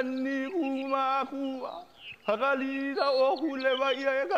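A single voice chanting in long held notes on a nearly steady pitch, gliding between notes, with a brief break about two seconds in.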